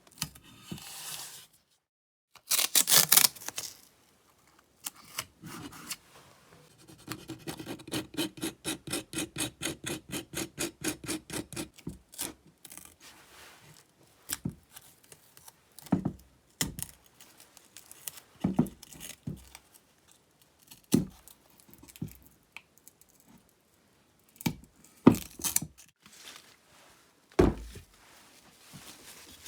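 Hand work on metal parts: scraping and rubbing, with a run of quick, even back-and-forth strokes, about four a second, in the middle, and scattered knocks and clicks of parts being handled.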